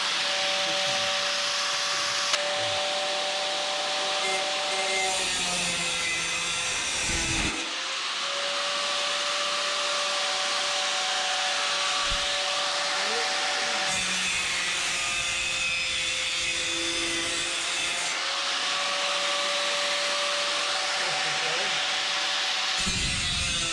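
A 4.5-inch angle grinder with a cutoff wheel running steadily and cutting metal stud channel, a high motor whine over a hiss of grinding. The whine sags in pitch a few times, around a quarter of the way in and again past the middle, as the wheel is loaded in the cut.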